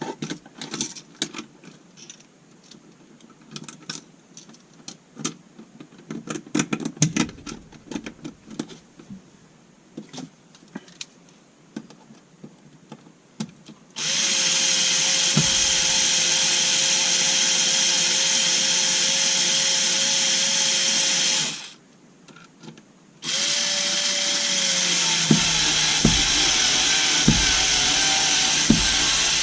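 Electric drill/driver motor running in a long steady whine of about seven seconds, stopping briefly, then running again, likely driving screws while the receptacle is mounted. Before it come scattered clicks and knocks of parts and screws being handled.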